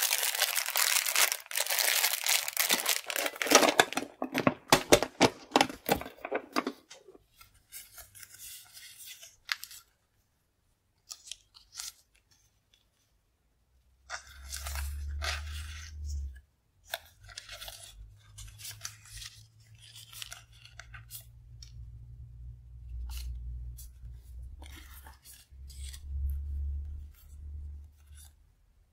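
Plastic sleeves crinkling and rustling loudly as hands rummage through a box packed with sticker packets. After about seven seconds it turns to softer, intermittent rustling and flicking of die-cut paper stickers being shuffled in the hands, with a low rumble under it.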